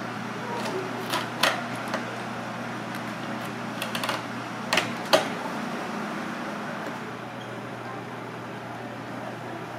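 A kitchen knife knocking on a wooden cutting board as an anglerfish is cut apart: a few sharp knocks in two short clusters, the loudest about five seconds in, over a steady background hum.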